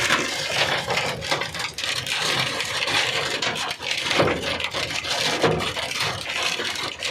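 Large hailstones pelting a vehicle's body and glass in heavy rain: a dense, irregular clatter of hard knocks, hard enough that they are cracking the glass.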